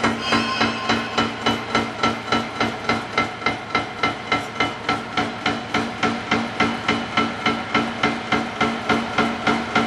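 End face milling machine's cutter head milling the end of a rusty steel beam: an even, rhythmic clatter of about three knocks a second from the cut, over a steady hum of the spindle drive.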